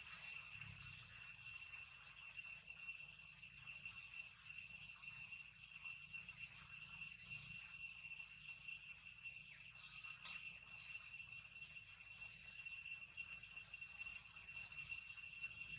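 Steady, high-pitched insect chorus that holds several shrill tones without a break, with one faint click about ten seconds in.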